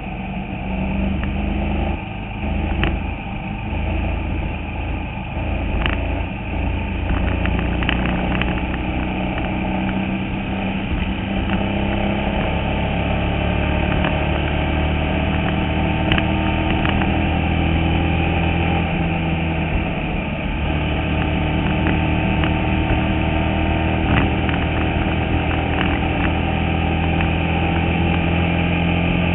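Bandolero race car's single-cylinder engine running hard, heard from inside the cockpit, its pitch slowly rising and falling with speed around the track. A few sharp clicks are heard over it.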